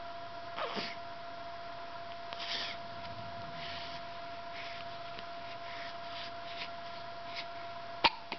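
A person's hiccups: a small hic about a second in, soft breathing between, and one sharp, loud hic near the end. A faint steady hum runs underneath.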